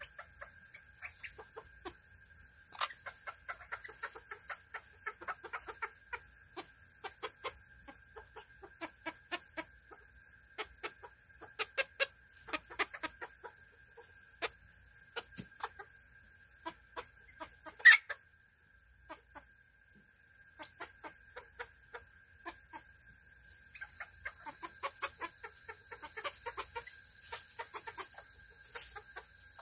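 Serama bantam chickens clucking softly in many short, quick notes, over a faint steady high whine. A single sharp click partway through stands out as the loudest sound.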